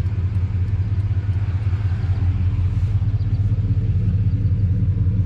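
Motorcycle engine idling steadily with an even low rumble.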